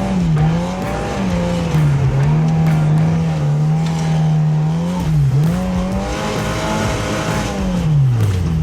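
Turbocharged Polaris RZR Pro R side-by-side engine running hard, pushing through deep snow. Its pitch holds steady with a few brief dips as the throttle is eased, and it falls away near the end as it slows.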